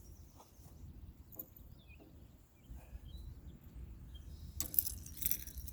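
Faint outdoor ambience: a low steady rumble with a few short bird chirps in the middle, then a brief rustling, handling noise near the end.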